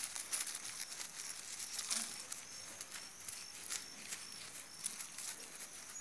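A hand scratching and scraping through loose dry soil and roots to uncover a sweet potato: a run of short, close crackling scrapes.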